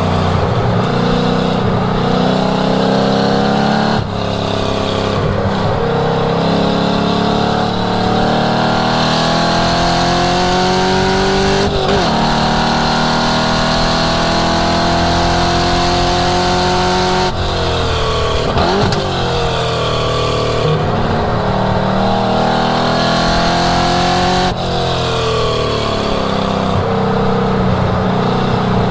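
1967 Ford Mustang's V8 under hard driving on track, its pitch climbing and falling with engine speed, with sudden breaks at gear changes about 4, 17 and 24 seconds in.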